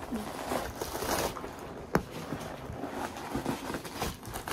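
Packing stuffing rustling and crinkling as it is pulled out of a mini backpack, with one sharp tap about two seconds in.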